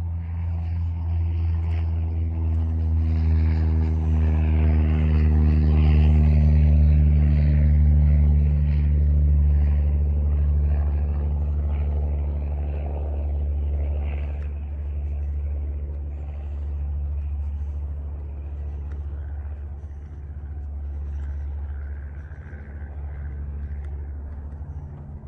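An engine running nearby: a steady low drone that grows louder about six seconds in and then slowly fades.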